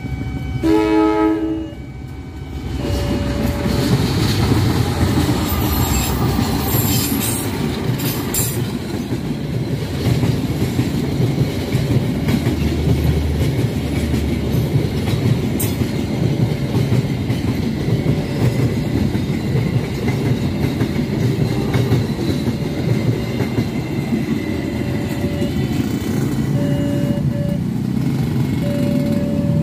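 A short horn blast from a CC 201 diesel-electric locomotive about a second in, then a passenger train passing close by: a steady rumble with wheels clattering over the rail joints.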